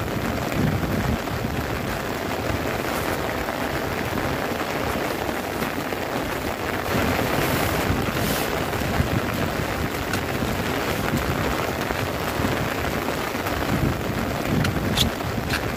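Heavy rain drumming steadily on a tent, heard from inside it. A couple of short clicks come near the end.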